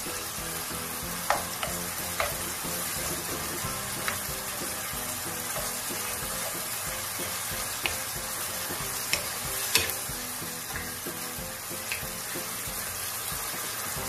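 Chicken pieces sizzling in sauce in a non-stick wok while a wooden spatula stirs them, with a few sharp knocks and scrapes of the spatula against the pan, the loudest about a second in and again near the ten-second mark.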